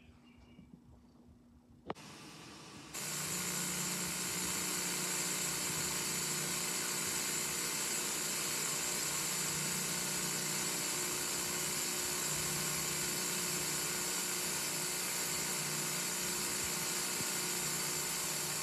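Steady electronic hiss with a low hum under it, the noise of the tape playback coming through the TV with no soundtrack over it. It starts with a click about two seconds in and jumps louder about a second later.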